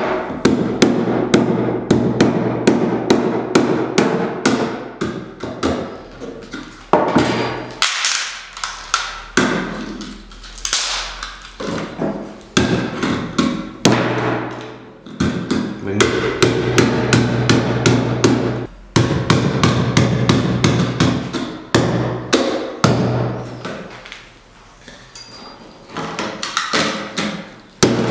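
A large knife blade chopping rapidly into plastic headphones on a stone slab over a wooden table: sharp hacking strikes about four to five a second, in runs of several seconds with short pauses, with plastic cracking as the parts break apart.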